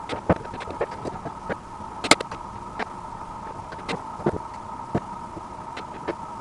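Spot welder firing through handheld copper probes, fusing nickel strip onto the lithium-ion cells of an e-bike battery pack: a series of sharp snaps at irregular intervals, the loudest about two seconds in, over a steady high whine.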